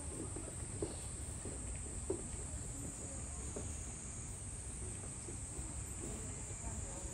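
A steady high-pitched insect drone over a constant low rumble, with a couple of faint soft knocks in the first few seconds.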